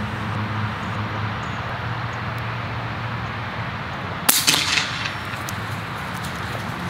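A single air rifle shot about four seconds in: one sharp crack with a brief tail, over a steady low background hum.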